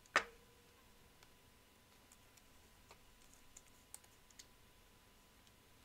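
Faint clicks and ticks of plastic being handled as a trading card is slid into a rigid clear plastic top loader, with one sharper click just after the start.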